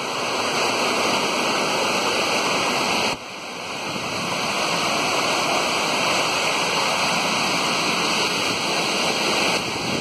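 Steady rush of a muddy river in monsoon spate pouring over boulders below a waterfall. The sound dips sharply about three seconds in and builds back up.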